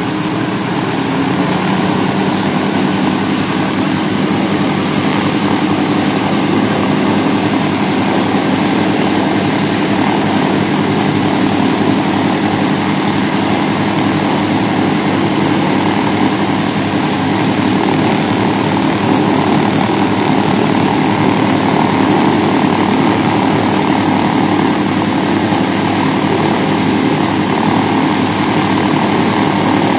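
The twin Pratt & Whitney R-1830-90 Twin Wasp fourteen-cylinder radial engines of a Douglas DC-3 Dakota (C-47B), both running steadily on a ground run.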